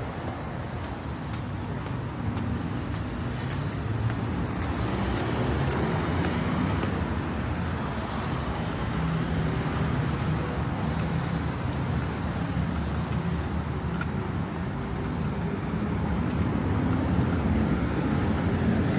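Steady road traffic: cars running along a city road, a continuous noise of engines and tyres that grows slightly louder toward the end, with a few faint sharp ticks in the first half.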